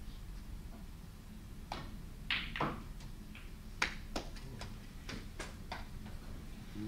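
Snooker balls clicking: the cue tip strikes the cue ball, then sharp ball-on-ball clicks and knocks follow, about ten in all, spread over a few seconds.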